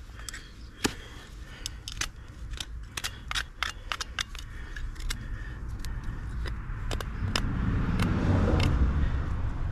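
Hoof knife paring a horse's front hoof: a run of short, sharp clicks and scrapes as the blade cuts the sole and frog. From about seven seconds in, a low rumble builds and is loudest near the end.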